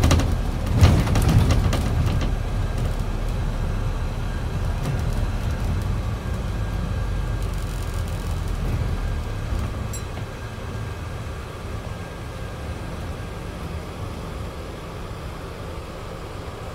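Scania E400 double-decker bus's diesel engine and running noise heard from the upper deck, with rattles in the first couple of seconds. The sound eases off from about halfway through as the bus slows for traffic ahead.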